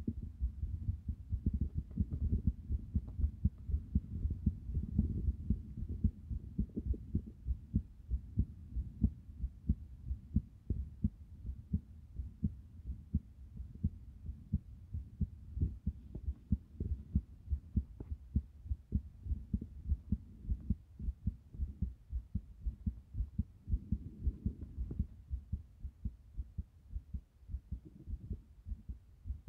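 A person's heartbeat picked up through the chest: a steady run of low, dull thumps, a few a second and unevenly spaced, which the uploader presents as an irregular heartbeat during breath-holding.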